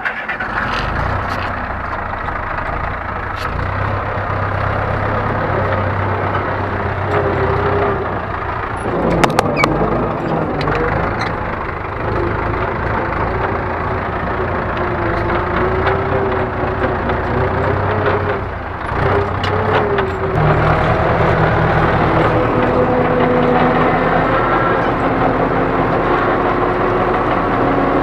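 Ursus C-4011 tractor's two-cylinder diesel engine started with the starter, catching at once, then running steadily while ploughing; its note shifts about 9 seconds in and again about 20 seconds in.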